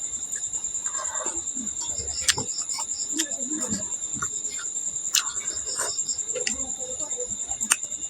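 Crickets chirping steadily in a continuous high pulsing trill, with close eating sounds over it: soft chewing and a few sharp clicks, about two seconds in, five seconds in and near the end.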